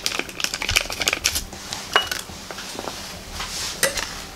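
Paper ingredient sachet crinkling and rustling as it is handled and emptied. Irregular small clicks and knocks of ceramic bowls run through it, with one brief ringing clink about two seconds in.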